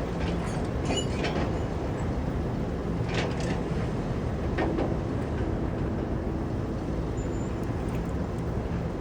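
Caterpillar crawler bulldozer's diesel engine running steadily, with several short sharp clanks in the first half.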